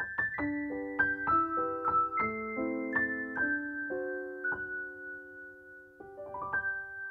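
Background piano music: a melody of single struck notes over held lower notes, with a quick rising run of notes about six seconds in.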